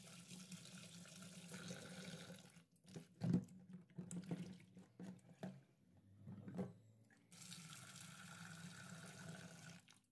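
Kitchen tap running into a steel bowl of raw green mangoes in a stainless steel sink. The water stops for a few seconds in the middle, where there are scattered knocks and clinks as a steel pan is handled in the sink. The tap runs again near the end.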